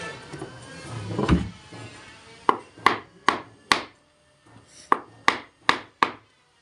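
A heavy thump about a second in, then sharp wooden knocks on a repaired cricket bat's blade: two runs of four evenly spaced taps, about two and a half a second.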